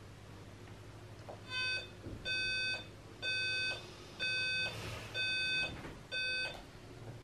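Digital bedside alarm clock going off: six evenly spaced electronic beeps, about one a second, each about half a second long. The beeping stops as the alarm is switched off.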